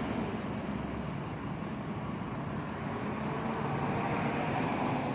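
Steady hum of street traffic and vehicle engines, swelling slightly in the second half.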